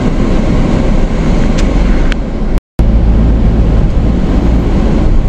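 Camper van running, heard from inside the cab: a steady low rumble of engine and road noise. The sound cuts out completely for a moment about two and a half seconds in.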